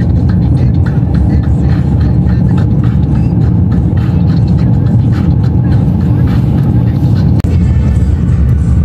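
Car driving through a sandstorm, heard from inside the cabin: a loud, steady low rumble of wind and road noise, with many irregular crackles over it.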